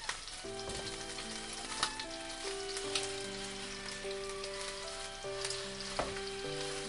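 Chicken thigh steak frying in a pan: a steady sizzle with occasional sharp pops of spitting fat, under soft background music.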